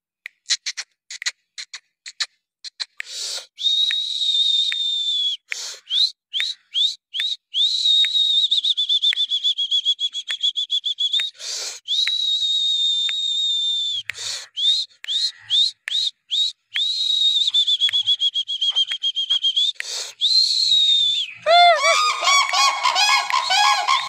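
A high, slightly wavering whistle held for about two seconds at a time, five times over, with quick rising chirps and clicks between the notes. Near the end, cranes break into loud honking calls.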